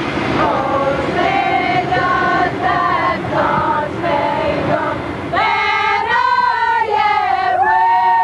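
Women's voices singing a melody together: a run of short separate notes, then longer held, sliding notes from about five seconds in.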